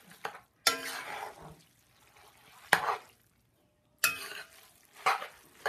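Metal spoon stirring spaghetti and meat sauce in a large metal pot: a few separate strokes, each a short scrape or knock of the spoon against the pot with a brief ring, with quiet gaps between.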